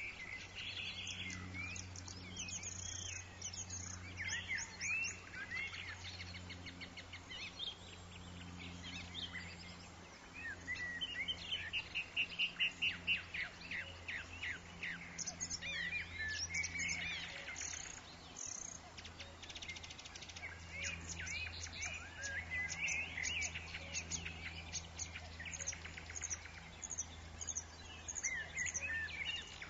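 Songbirds chirping and singing busily, with quick trills and rising and falling notes, over a low steady hum.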